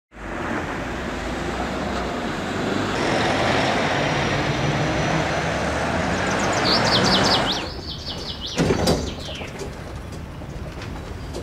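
Steady road-traffic noise from a street, with a bird singing a quick run of rising chirps about seven seconds in. The sound then cuts to a quieter scene, where two loud knocks come close together.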